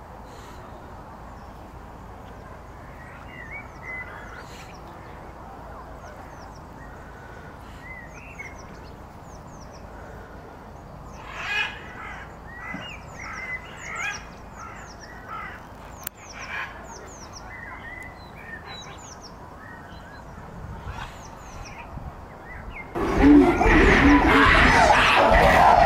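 Small birds chirping over a low outdoor background; near the end a sudden outburst of loud western chimpanzee calls breaks out and carries on.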